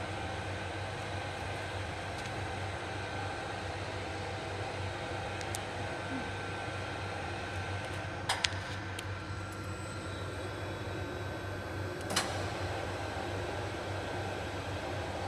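Steady mechanical hum of running machinery with a low drone. A few sharp clicks come about eight seconds in, and one more about twelve seconds in.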